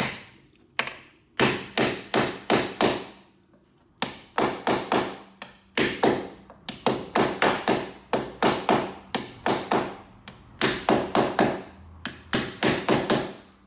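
A slappy body hammer tapping repeatedly on a car's rocker panel, in quick runs of three to five blows with short pauses between them, knocking down the pressure around a dent that is being glue-pulled out.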